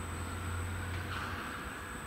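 Low rumble of a distant vehicle that fades out about one and a half seconds in, over steady outdoor background noise.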